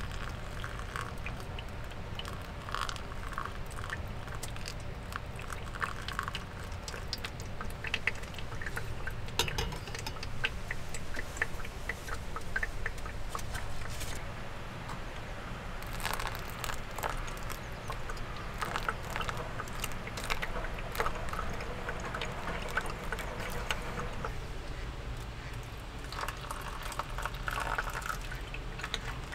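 Hot water poured from a small stainless steel cup onto coffee in a paper filter in a ceramic pour-over dripper. Thin trickling and light dripping, with many small ticks, over a steady low hum.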